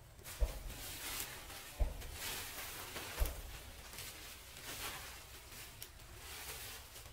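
Black plastic sheeting rustling and crinkling as it is pulled and spread over the ground, swelling and fading, with three short dull thumps in the first few seconds.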